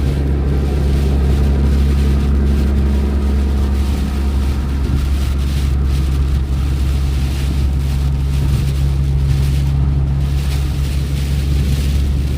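Vehicle driving at highway speed on a wet road: a loud, steady low drone of engine and tyres with a hiss of tyre spray over it.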